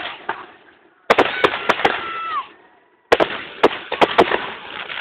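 Aerial fireworks bursting in a rapid, irregular series of sharp bangs and crackles, each with an echoing tail. The sound cuts out abruptly twice, about a second in and about three seconds in, then the bangs resume.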